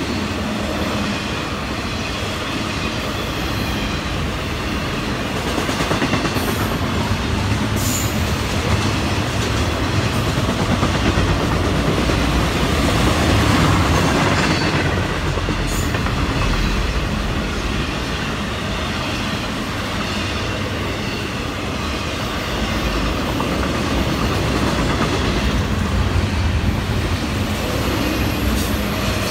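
Cars of a Florida East Coast Railway intermodal freight train rolling past: a steady rumble and clatter of wheels on rail, swelling a little midway, with a few brief sharp clicks.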